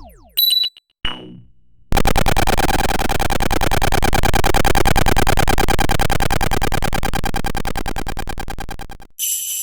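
A run of synthesized electronic sound effects: two short pitched blips, then a long buzzing sound made of rapid pulses that lasts about seven seconds and cuts off, followed near the end by a bright high shimmer.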